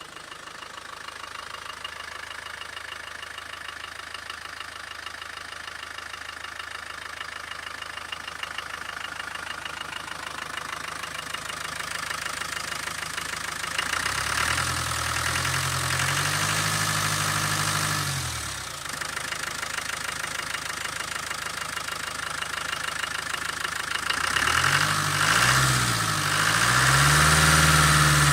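Land Rover Defender 300Tdi 2.5-litre four-cylinder turbodiesel idling with a rapid metallic ringing knock, like a bell, which the owner hears only from idle to about 1100 rpm and places near the number one piston or the water pump; its cause is unknown. About halfway through the engine is revved briefly, and near the end it is blipped a few times.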